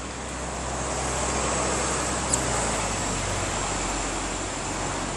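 Road traffic: a passing vehicle's noise swells and then fades, with a brief high chirp about two seconds in.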